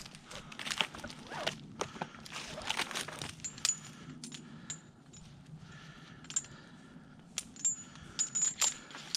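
Metal climbing hardware such as carabiners clinking and jingling in irregular sharp clicks, some with a short metallic ring.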